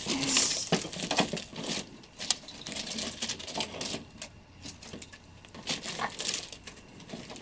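Plastic packaging being handled and pulled: crinkling with irregular small clicks and ticks, a brighter rustle about half a second in.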